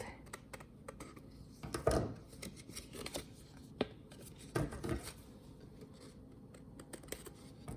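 Scissors snipping thick paper, trimming off the excess after a fold: a few irregular snips and crunches with paper handling in between.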